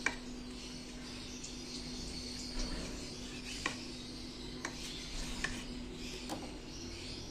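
A kitchen knife cutting through a steamed wheat-flour roti on a ceramic plate, with several sharp clicks of the blade touching the plate, over a steady low hum.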